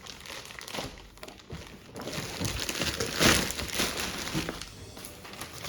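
Packaging being pulled off and crumpled by hand: irregular rustling and crinkling, with one louder rip about three seconds in.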